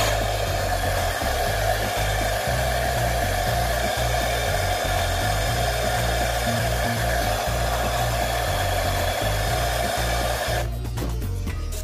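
Handheld hair dryer running steadily, blowing on a wig's hair, with a constant rushing whir; it switches off about a second before the end.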